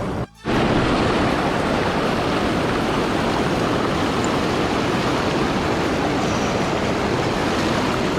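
River water rushing steadily over a shallow riffle: an even, loud wash with no let-up. It drops out briefly about a third of a second in.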